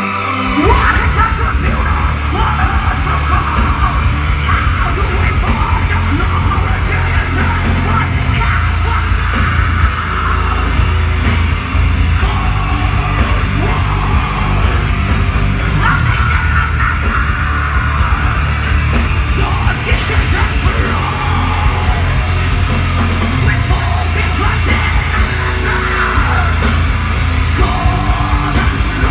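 Metal band playing live at full volume: distorted electric guitars, bass and pounding drums come in together about half a second in, with a woman's screamed and yelled vocals over them.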